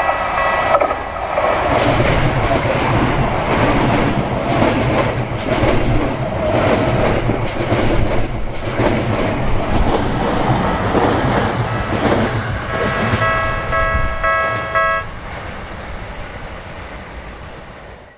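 An electric train of the Tokyu Toyoko Line runs through a level crossing on a sharp curve, with a loud rumble, a rapid clatter of wheels on the rails and a low motor hum. The Japanese crossing's electronic warning bell rings at the start and is heard again near the end, then stops about three seconds before the end. A quieter rumble is left as the train moves away.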